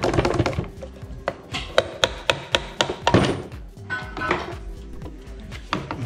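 A series of irregularly spaced knocks: a nut set on the end of a car radiator fan motor's shaft being tapped downward to drive the shaft out of the fan blade's hub.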